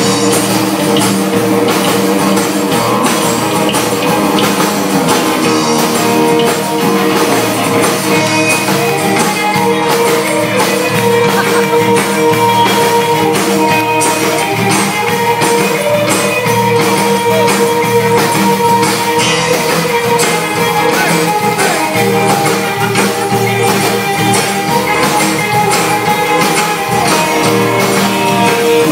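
Live rock band playing: acoustic and electric guitars over a drum kit, a steady loud song with a regular drum beat.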